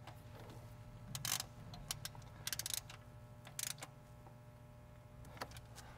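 Ratchet wrench clicking in a few short bursts as it runs down a small M6 bolt.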